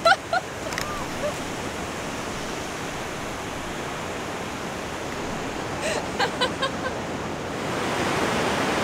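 Ocean surf and wind, a steady rushing that grows a little louder near the end. A few brief pitched calls come about a second in and again around six seconds in.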